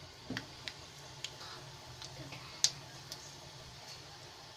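Mustard seeds and dal crackling in hot oil in a small tempering pan: a scattering of sharp, irregular pops, the loudest about two and a half seconds in.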